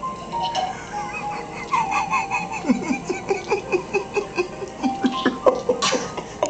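A woman laughing in quick bursts, about three or four a second, over background music with steady held notes, with a sharp breathy gasp near the end.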